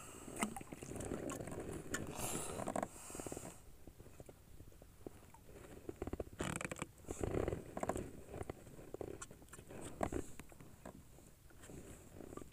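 Irregular knocks, clicks and rustles of someone moving about and handling gear on a small boat's deck, with a couple of longer stretches of scraping and rustling.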